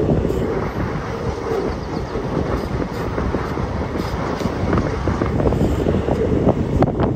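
Passenger train running at speed, heard from an open coach doorway: steady rolling noise from the wheels on the rails, with a continual irregular clatter of wheel-on-rail clicks.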